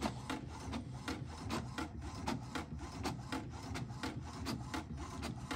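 HP Ink Tank 319 inkjet printer printing a colour test page: a rapid, even ticking as the print carriage shuttles across, with the page feeding out.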